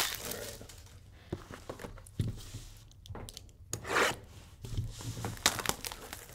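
Cardboard trading cards (2022 Panini Chronicles football cards) being handled: cards sliding and rubbing against each other, with a sharp swish at the start and another about four seconds in, and a few light taps between.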